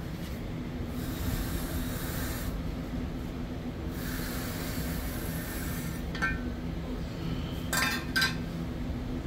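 Hand ductboard groove-cutting tool pushed along a metal straightedge, its blades scraping and rubbing through fiberglass duct board in long strokes. A few sharp clinks follow in the last few seconds as the tool is put down.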